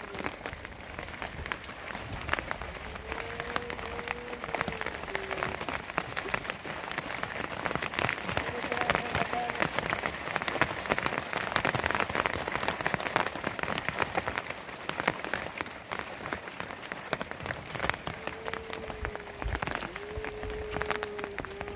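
Rain falling, a dense crackle of many drops that is heaviest midway.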